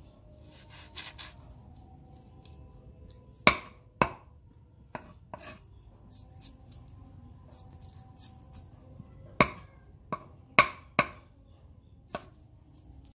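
A broad-bladed knife chopping small fish on a thick wooden chopping board: about nine sharp knocks of the blade striking the wood, at uneven intervals and in loose clusters with pauses of a few seconds between them.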